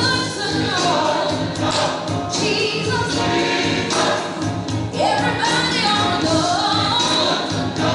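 Gospel music with a choir singing over instrumental backing.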